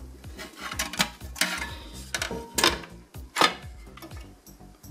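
A Cisco RV220W router's plastic and metal housing clicking and knocking in several separate sharp snaps as its top cover is pried and slid off the base.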